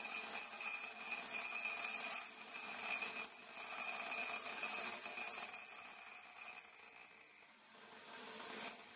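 Carbide cutting tool on a homemade lathe cutting thick steel plate, giving a high-pitched metallic squeal. The squeal pulses at first, then runs steady, breaks off about three-quarters of the way through and comes back briefly at the end.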